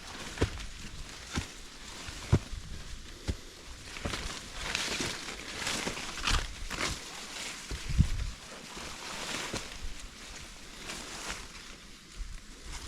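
Footsteps climbing a steep dirt trail: irregular thuds about once a second, with scuffing and rustling between them.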